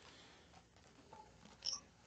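Near silence, with one brief, faint rustle near the end as a picture book's page is turned.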